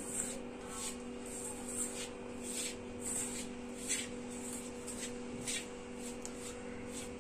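Fingers rubbing and mixing dry flour with a little oil in a steel bowl: soft, irregular swishing scrapes about every half second to a second, over a steady low hum.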